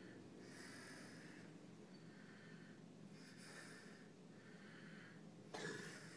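Soft snoring in sleep: quiet, raspy breaths about once a second, with a louder snort about five and a half seconds in.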